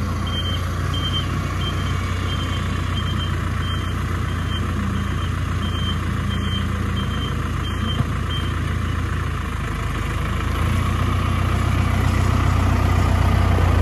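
Tractor engine running steadily with a reversing alarm beeping about twice a second; the beeping stops about eight seconds in, and the engine grows a little louder near the end.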